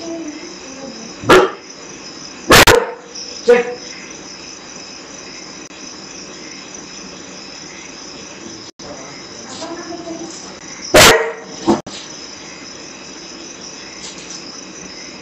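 Dog barking in alarm: three sharp barks in the first few seconds, then two more later on, over the steady chirring of crickets. It is a protective bark of an unusual tone, raised at a black scorpion the dog has found.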